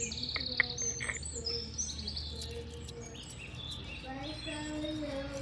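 Small birds chirping and trilling, with a few light clicks in the first second or so.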